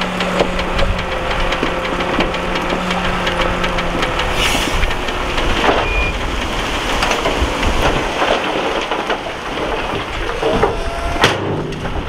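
Heavy diesel earthmoving machinery running, its engine humming steadily under frequent metallic clanks and knocks, with one sharp knock near the end.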